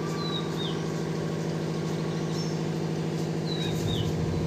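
A steady mechanical hum, as of a motor running, goes on throughout. A bird calls twice, each a short high note that hooks downward. Wind begins rumbling on the microphone near the end as the storm gusts pick up.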